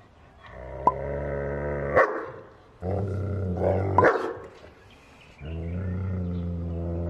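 A German shepherd growling low and steadily in three long stretches, the first two each ending in a short sharp bark: a warning to keep the border collie away from the bones.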